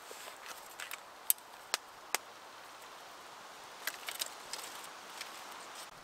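Small campfire crackling: scattered sharp snaps over a soft, steady hiss.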